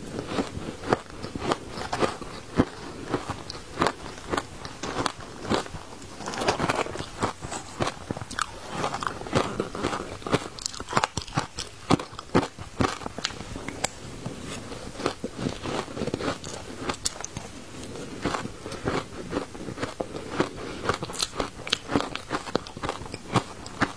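Shaved ice with matcha powder being bitten and chewed: dense, irregular crunching with sharp cracks throughout.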